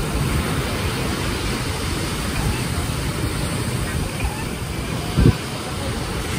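Waves breaking and washing onto a sandy beach: a steady wash of noise with a low rumble, and one short low thump about five seconds in.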